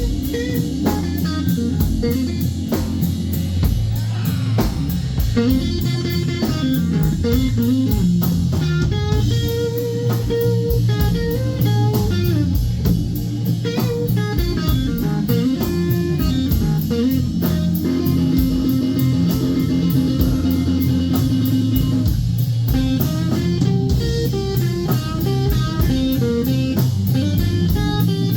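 Live blues band playing a slow blues instrumental passage: an electric guitar lead with bent notes over bass guitar and drum kit.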